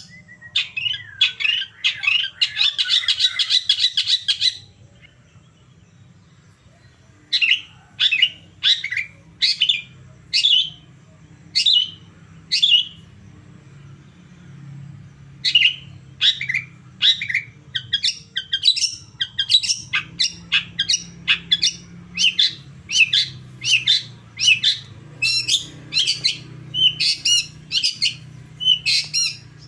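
Long-tailed shrike (cendet) calling: a fast chattering burst at first, a short pause, then long runs of sharp, harsh calls repeated about twice a second.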